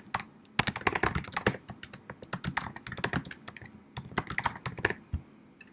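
Typing on a computer keyboard: a fast, uneven run of key clicks that stops shortly before the end.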